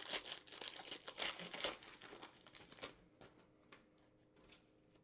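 Foil trading-card pack wrapper crinkling and tearing as it is ripped open by hand, for about three seconds, then only faint scattered clicks as the cards are handled.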